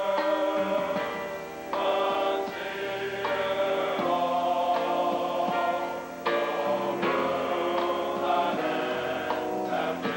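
Large mass choir singing a gospel hymn in full harmony, holding chords that change every one to three seconds.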